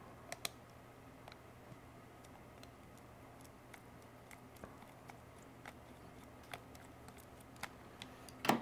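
A small Phillips screwdriver backing out the tiny screws that hold the microphone assembly to a Bose A20 headset's earcup: faint, scattered ticks and clicks, with one louder click near the end.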